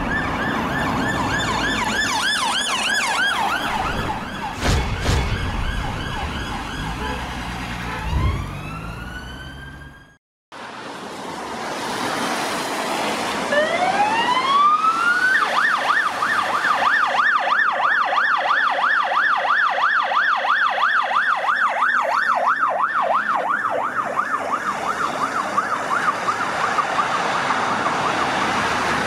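Police car siren on a BMW 330d patrol car: it winds up in one rising wail, then switches to a fast, even yelp that carries on. Before it, about ten seconds of intro siren effects with whooshes and a low hit end in a brief silence.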